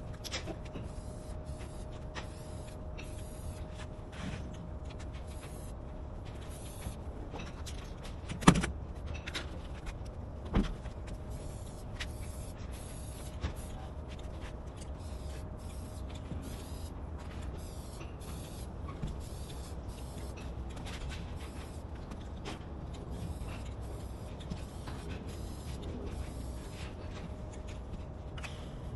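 Steady low rumble with a faint steady hum through the first two-thirds, and two sharp knocks, the first loud, about eight and a half and ten and a half seconds in.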